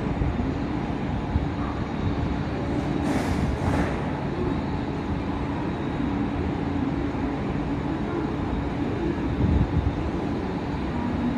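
Steady hum and hiss of a stationary JR West 221 series electric train standing at the platform. A brief hiss comes about three seconds in, and a low thump near the end.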